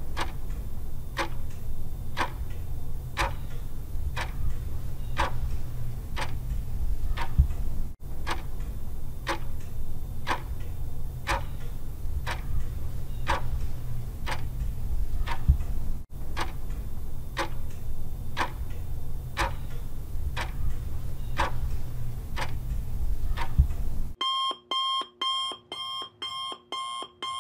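Countdown-timer sound effect: a clock ticking about twice a second over a low rumble. Near the end the ticking gives way to rapid alarm-clock beeping as the time runs out.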